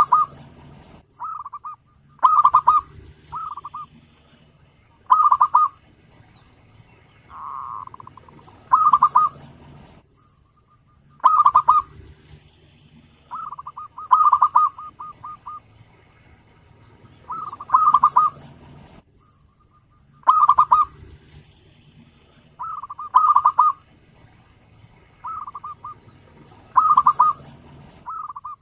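Zebra dove (perkutut) cooing: short phrases of quick, stuttering coo notes repeated every second or two, the bird calling nonstop.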